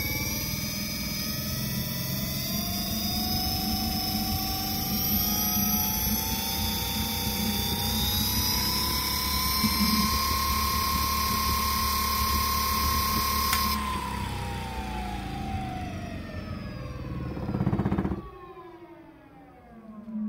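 3 kW electric hub motor spinning its wheel unloaded at its first power-up. The whine rises in pitch as it speeds up over about ten seconds and holds steady for a few seconds. It then falls as the wheel slows, and the loud running noise cuts off sharply about eighteen seconds in, leaving a faint whine dying away.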